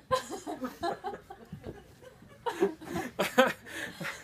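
People laughing in bursts of chuckles, with a louder run of laughter about two and a half seconds in.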